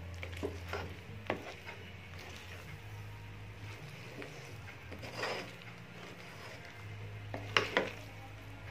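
A utensil stirring thick ube halaya in a metal pot: scattered scrapes and knocks against the pot, two sharp knocks close together near the end, over a steady low hum.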